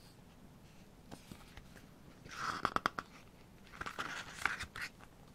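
Pages of a glossy photo book being turned and handled: two bursts of paper rustling with small snaps, about two seconds in and again near four seconds.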